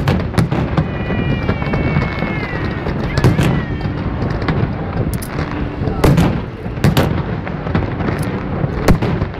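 Fireworks display: shells bursting in a series of sharp bangs, about half a dozen, irregularly spaced, over a continuous rumble and crackle.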